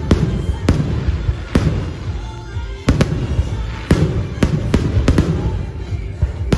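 Aerial fireworks shells bursting overhead: about a dozen sharp bangs at irregular intervals, with crackling and rumble between them and music playing underneath.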